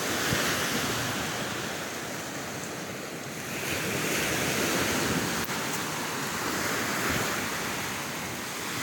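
Small sea waves washing onto a sandy beach, the surf swelling and easing in slow surges, with wind on the microphone.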